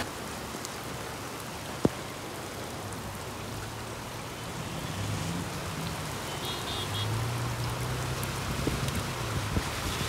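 Steady rain falling on wet pavement and a flooded road. A low engine hum of traffic driving through the water comes in a few seconds in, and there is one sharp click about two seconds in.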